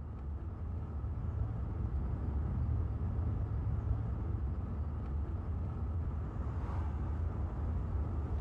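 Steady low rumble of a car in motion, heard from inside the cabin.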